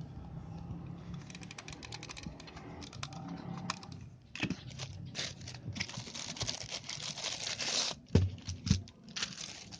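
Logitech MK220 wireless keyboard being handled: a run of rapid key clicks, then a few seconds of continuous rustling, and two sharp knocks near the end, the loudest sounds here.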